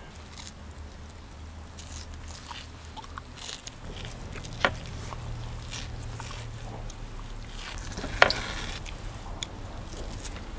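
Hands handling raw cow liver on a wooden board, fingers pulling at its thin surface membrane: wet, sticky squelches and small clicks, the sharpest about five and eight seconds in.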